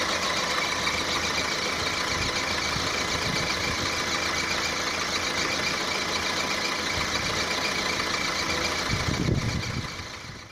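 1.4-litre petrol VW Golf Mk4 engine idling with a steady, high-pitched squeak over the running engine, which the owner suspects comes from one of the drive belt pulleys or the water pump. The sound fades out near the end.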